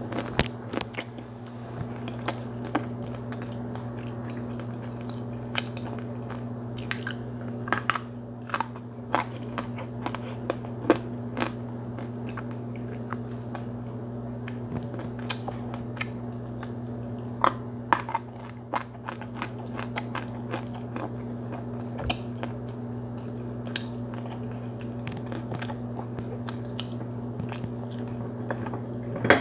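Close-up biting and chewing of hard chunks of smoked Liberian clay: irregular sharp crunches and cracks, several a second at times, with quieter grinding between. A steady low hum runs underneath.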